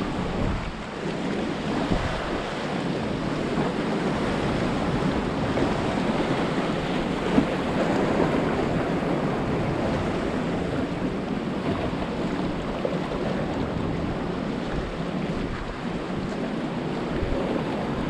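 Sea waves washing and breaking against the concrete tetrapods of a breakwater, with wind buffeting the microphone. One brief sharp click about seven seconds in.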